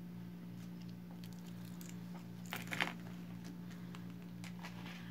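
Beaded earrings being handled and put away: faint clicks and rustles, with a short cluster of clicks about two and a half seconds in, over a steady low hum.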